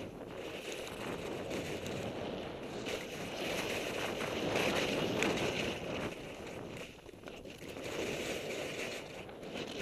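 Skis hissing and scraping over snow during a fast descent, mixed with wind rushing over the microphone; the rush swells and eases, dipping briefly about seven seconds in.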